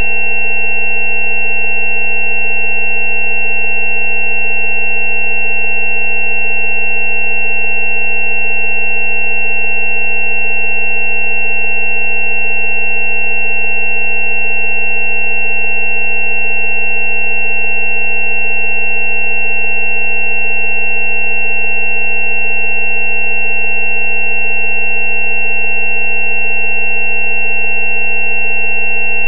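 Synthesized 'healing frequency' tone for dental abscesses, built on a 190 Hz tone: a steady electronic drone of several pitches sounding together, the highest one loudest, holding without change.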